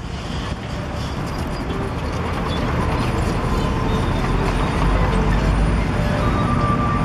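Heavy diesel engines of a concrete mixer truck and a Komatsu PC120 excavator running, growing steadily louder as the truck drives onto the site.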